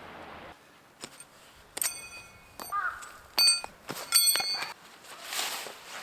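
Metal objects clinking together several times, each strike ringing briefly, followed by a short rustle near the end.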